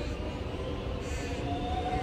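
Electric suburban Metro train pulling away from the station, its motors giving a slowly rising whine over a low running rumble.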